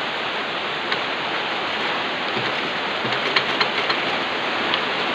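A steady rushing hiss, with a few light clicks and taps from about three seconds in.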